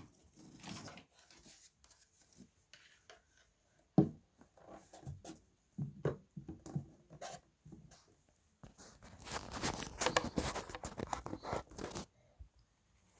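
Hands taking apart a radio: scattered clicks and knocks of plastic and metal parts, one sharp knock about four seconds in. Then about three seconds of dense scraping and crackling.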